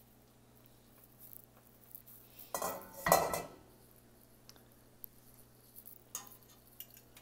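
A metal pot lid set down with a clatter about two and a half seconds in, then a few light clinks of a fork against a ceramic plate near the end.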